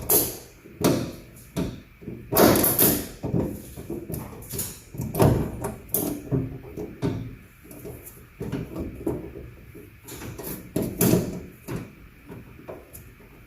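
Irregular knocks, clanks and scraping of metal parts being handled and fitted inside a pickup truck's door, with sharp louder knocks about 2.5, 5 and 11 seconds in.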